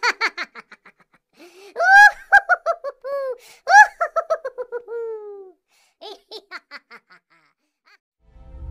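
Laughter sound effect: a high-pitched laugh in rapid 'ha-ha' pulses, in three runs with short pauses between them. The loudest, middle run trails off into a drawn-out laugh falling in pitch.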